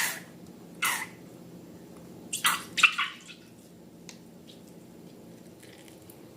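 Wet slime squelching and popping as it is squeezed, in short sticky bursts: one at the start, one about a second in, and a quick cluster of three around two and a half to three seconds, over a faint steady hum.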